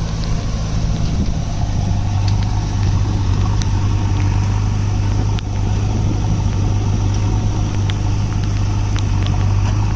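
Mahindra Arjun 555 DI tractor's four-cylinder diesel engine running steadily at an even, low drone while hitched to a fully loaded trolley, with a backhoe loader's diesel engine running close by.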